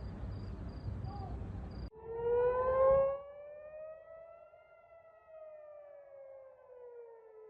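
Air-raid siren wailing, warning of an incoming missile and drone attack. After a couple of seconds of noisy background it comes in abruptly, its tone climbing for about three seconds and then slowly falling.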